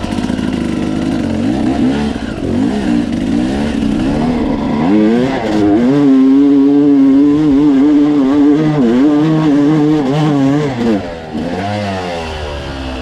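Dirt bike engine pulling up a steep dirt trail climb, revs rising and falling with the throttle, then held high and steady for several seconds, loudest in the middle, before dropping back to a lower note about two seconds before the end.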